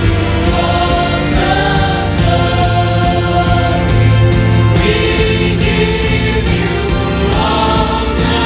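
A choir singing with band accompaniment, a steady beat throughout.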